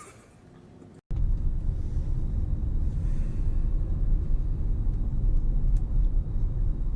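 A steady low rumble starts abruptly about a second in and holds on. Before it there is only a faint, quiet stretch.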